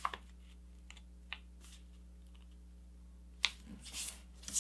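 Sheet of paper being folded and creased by hand on a cutting mat: a few faint clicks and light rustles, with a sharper click a little past three seconds in.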